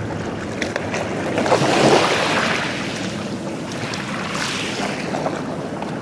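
Sea waves breaking and washing ashore in a small cove: a steady wash of surf, with one wave surging loudest about two seconds in and a smaller surge a couple of seconds later.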